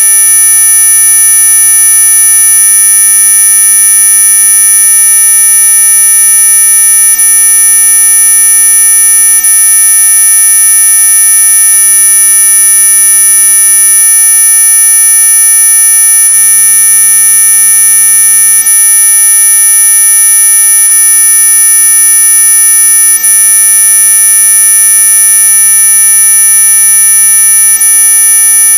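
Anti-mosquito repellent tone track: a steady, loud electronic whine made of several held pitches at once, the loudest of them very high-pitched, unchanging throughout.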